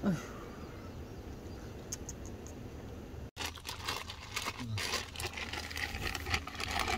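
A short sigh, then steady background noise; about halfway through, a thin plastic bag crinkling and rustling as it is handled and opened by hand.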